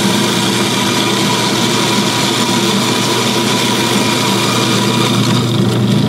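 Curtis GSG 3BLK commercial bulk coffee grinder running, its motor and burrs grinding whole beans on a coarse setting: a loud, steady hum with a grinding rush.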